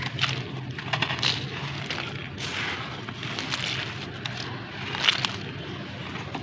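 Crumbly sand-cement broken up by hand, crunching and trickling as grit falls onto a loose pile, with sharper cracks about a second in and again near the end.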